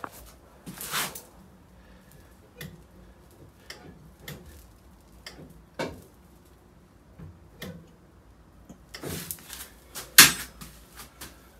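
Light, irregular clicks and knocks of handling, a few seconds apart, with a louder cluster of rustling and knocking about nine to ten seconds in.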